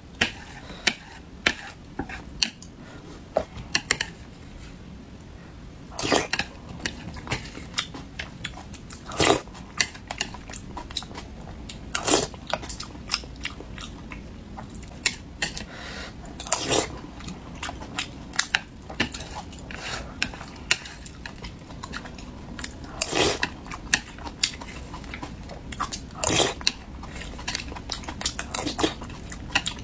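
Close-miked eating of spicy braised fish: chewing and biting with small wet crackles, and sharp clicks from a spoon and chopsticks against the tray. A louder click or stroke comes every few seconds.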